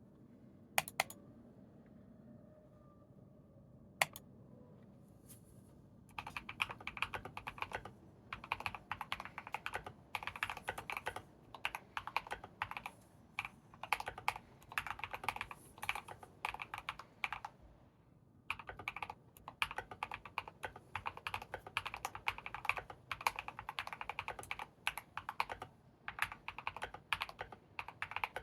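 Typing on an Akko 3098B mechanical keyboard fitted with hand-lubed Akko CS Silver linear switches, its sound damped by PE foam on the PCB, tempest and hamburger mods, and polyfill with a silicone sheet in the case. A few single key presses first, then fast continuous typing from about six seconds in, with a brief pause a little past the middle.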